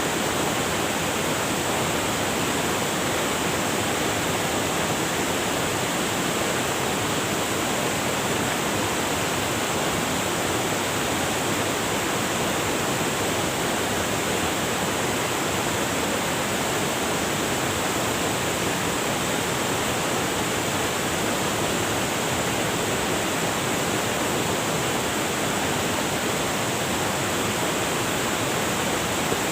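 River water rushing over rocks, a steady, unbroken rush.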